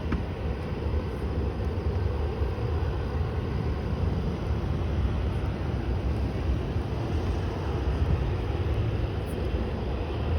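Embraer E175's twin GE CF34 turbofans at takeoff thrust, heard as a steady low rumble.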